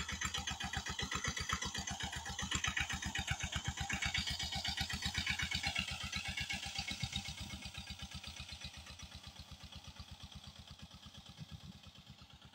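Sanedo farm vehicle's engine running with rapid, even thumps, growing fainter over the second half.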